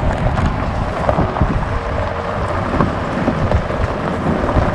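Wind buffeting the microphone of a handheld camera: a steady low rumble with uneven gusts.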